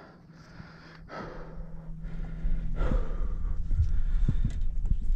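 An angler breathing hard, two heavy breaths about a second and three seconds in, while straining against a large fish on a heavy rod. From about halfway a loud low rumble with scattered knocks builds up.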